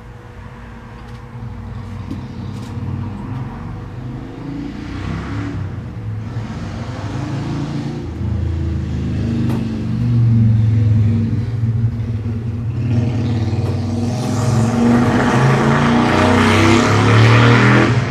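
Motorcycle engines running and growing steadily louder, as if approaching, with the exhaust loudest and harshest over the last few seconds.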